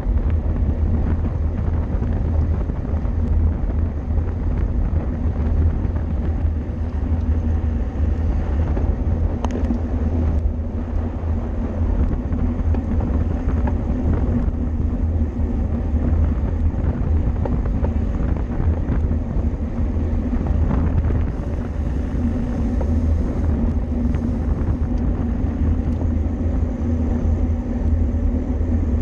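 Steady wind rush and road rumble on a camera riding along on a racing bicycle at speed, loud and unbroken.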